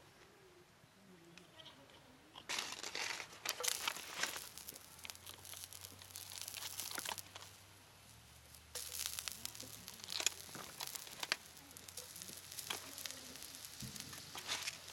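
Crackling and crinkling in bursts as garlic cloves go into oil heating in a cast iron skillet over a small wood-burning camp stove. The bursts start about two and a half seconds in, pause briefly around eight seconds, then resume.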